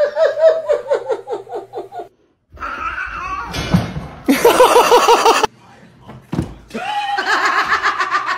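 People laughing in bursts, a quick ha-ha-ha rhythm, in three stretches with short breaks between them; the loudest is about four to five seconds in.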